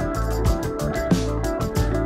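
Background music with a steady beat, sustained notes over a low bass line.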